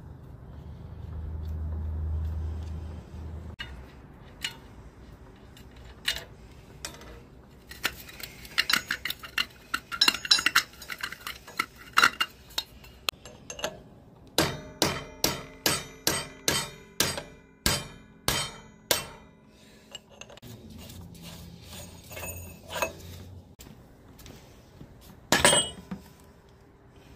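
Hand tools working on a steel hydraulic accumulator bottle as its oil-port fitting is broken loose: a run of metallic clinks, then evenly spaced ringing metal-on-metal strikes about two a second in the middle, and one loud knock near the end.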